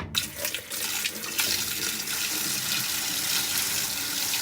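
Hot water poured from a pitcher into the bottom of a washing machine's tub, a steady splashing pour that starts suddenly.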